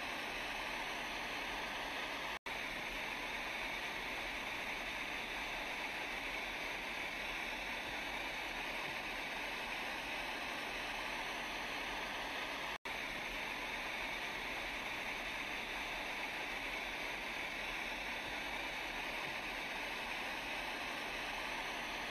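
Steady rushing floodwater noise from a tsunami simulation. It cuts out for an instant about two and a half seconds in and again about thirteen seconds in, as a repeating water sound loop restarts.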